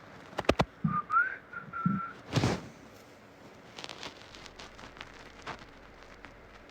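A man's stomach growling: a squeaky, whistle-like whine about a second long that rises in pitch partway, with low gurgles just before and after it. A couple of clicks come just before, and a short rustling burst follows.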